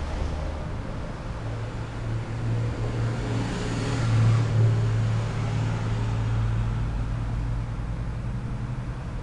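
Street traffic driving past, one vehicle passing close and loudest about four seconds in, over a steady low engine hum.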